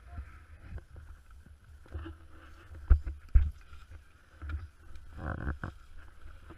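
Handling noise from a handheld camera held close to the face inside a car: a steady low rumble, with two sharp knocks, the loudest sounds, about three seconds in.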